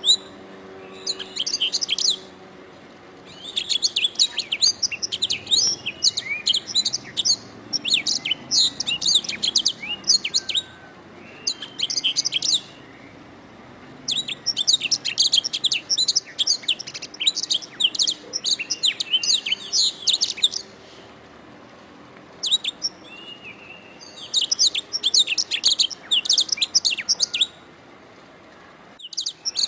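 Domestic canary singing: fast, high trilled phrases a few seconds long, broken by short pauses.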